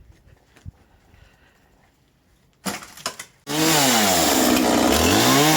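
A few faint clicks, then a brief rattle about two and a half seconds in. Then a chainsaw starts up loud, its pitch dropping and rising again as it cuts into wood.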